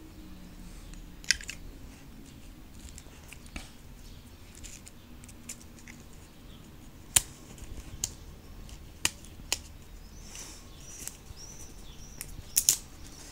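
Handling noise of plastic packaging and earphones: scattered light clicks and taps, with a short rustle and a cluster of sharper clicks near the end.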